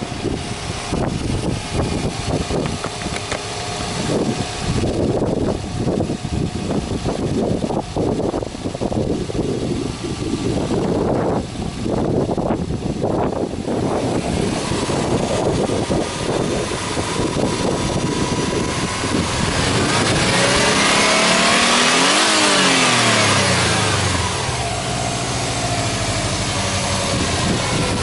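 Subaru Impreza WRX's turbocharged EJ20 flat-four engine idling, then revved once about three-quarters of the way in: the pitch climbs over about two seconds and falls back to a steady idle.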